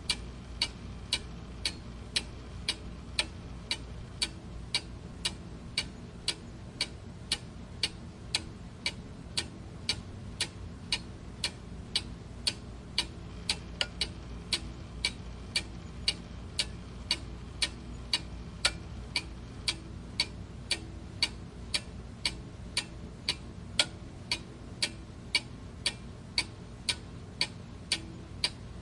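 Mechanical clock ticking steadily, about two sharp ticks a second, over a faint low hum.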